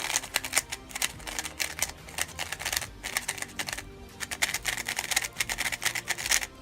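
YJ MGC magnetic 3x3 speedcube being turned fast: quick runs of plastic clicks and clacks, with brief pauses about three and four seconds in.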